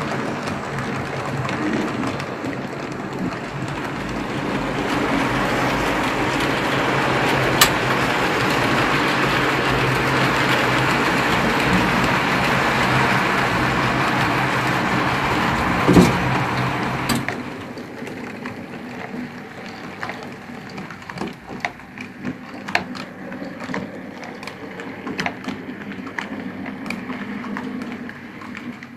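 HO scale model trains running on PIKO track: a steady rolling and motor hum of wheels and small electric motors. About 17 seconds in it cuts to a quieter stretch of light, irregular clicks of wheels over rail joints.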